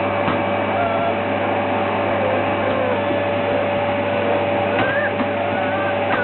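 Vacuum cleaner running steadily, a constant whine over its motor hum.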